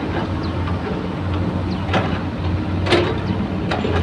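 Steady low drone of an engine running, with a few sharp clicks about two, three and nearly four seconds in.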